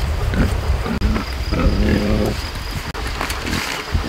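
A pig grunting once in a low, drawn-out call about a second and a half in, over a low rumbling noise.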